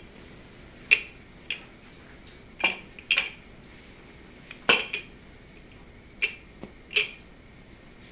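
Air bubbles in risen French bread dough squeaking and popping as it is rolled out with a wooden rolling pin: about nine short, sharp squeaks and pops at irregular intervals. The squeaking is taken as the sign of a good, well-risen bread dough.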